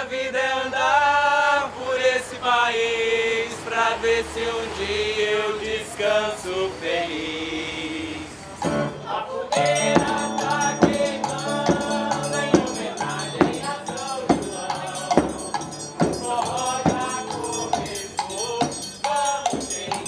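Live Brazilian forró music: a man sings a slow line with long held notes, then about eight seconds in the band starts a steady beat on zabumba bass drum, with acoustic guitar, triangle and several voices singing together.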